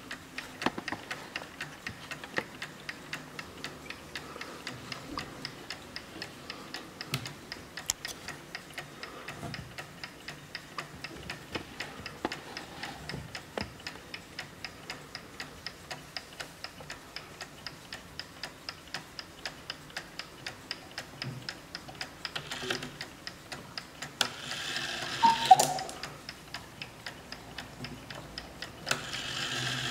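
Brass movement of a 1920 Junghans mantel cuckoo clock ticking steadily and evenly. Near the end a hiss with short pitched notes starts up, typical of the cuckoo's bellows and pipes as the mechanism is set off.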